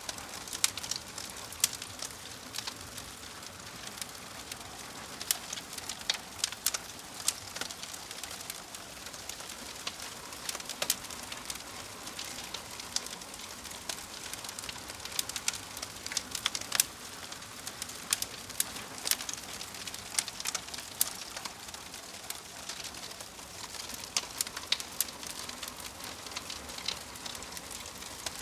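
Wood fire of burning logs in a fireplace crackling, with irregular sharp pops over a steady soft hiss.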